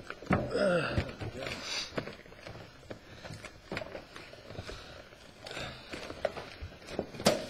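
Fuel cell bladder being folded and pushed down into a welded metal fuel cell can by hand: rustling and scuffing of the bladder with scattered knocks against the can, and one sharp knock near the end. Brief muttered talk in the first two seconds.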